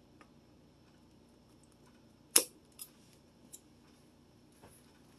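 A sharp click a little over two seconds in, followed by three fainter clicks over the next two seconds.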